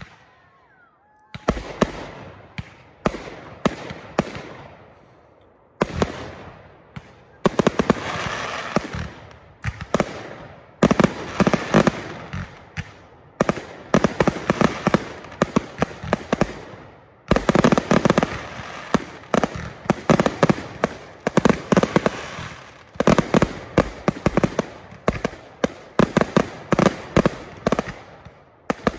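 Aerial fireworks going off in a rapid barrage of bangs and crackling. After a quiet first second, single bangs start and build into an almost continuous volley from about seven seconds in, with a short lull partway through.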